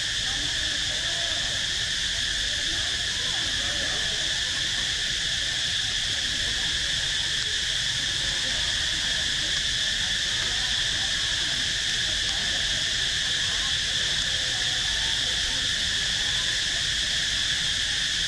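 Steady chorus of insects: a continuous high buzzing drone at several pitches that holds unchanged throughout, over a faint low background noise.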